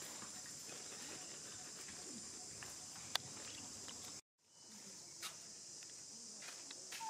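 Steady high-pitched drone of an insect chorus, with a few faint clicks and rustles in dry leaf litter. The sound cuts out for a moment about four seconds in.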